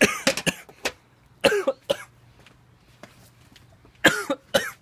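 A man coughing in three bouts: a cluster of coughs at the start, another about a second and a half in, and a last pair near the end.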